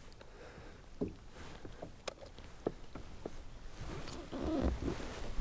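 Faint, scattered clicks and light knocks of a crappie being handled in a fishing boat, with a low rumble on the microphone building up about four seconds in.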